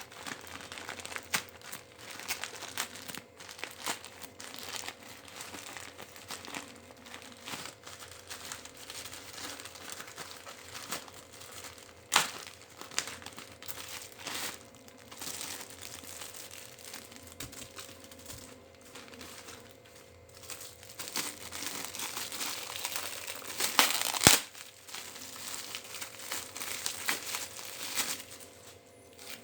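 Packaging crinkling and rustling as a hand-grip exerciser is unboxed, with irregular clicks and a few sharp cracks, the loudest about 12 seconds in and around 24 seconds in.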